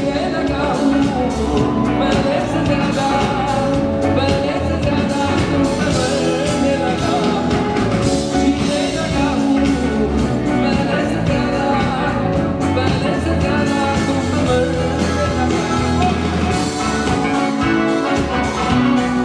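Live band playing with a male vocalist singing into a microphone over drums and keyboards, amplified through a concert PA.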